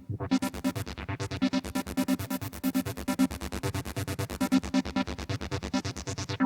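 Roland System-8 synthesizer playing a preset: a fast, even sequenced pattern of short, bright notes over a pulsing bass line. The bright top of the sound cuts off suddenly at the end.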